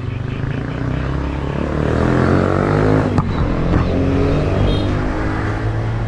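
A motor vehicle engine running and revving up, its pitch rising about two seconds in, with two sharp clicks shortly after.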